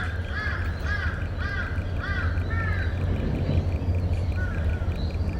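An animal giving a run of short, arched calls, about two a second, which fade and thin out after about three seconds, over a steady low hum.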